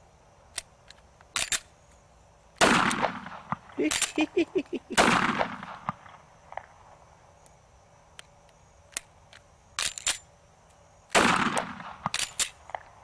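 Semi-automatic pistol firing single shots a few seconds apart, each trailing off in a long echo, with short sharp clicks of the slide being handled in between.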